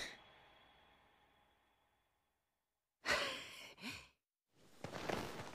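A young man's sigh: one long breath out about three seconds in, then a brief second breath. Faint noise rises near the end.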